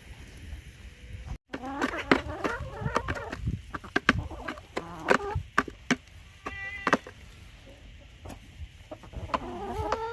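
Chickens clucking and squawking in a run of short calls, with a longer drawn-out call starting near the end.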